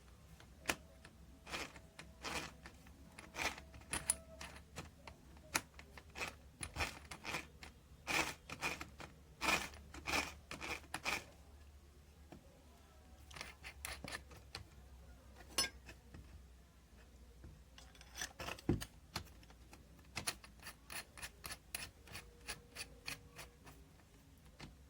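Irregular clicks and scrapes of small metal parts handled by hand, in bunches of quick taps with pauses between them, over a faint steady hum.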